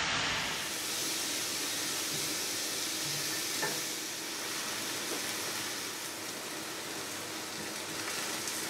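Food sizzling steadily on a hot ridged grill pan, with one small click about three and a half seconds in.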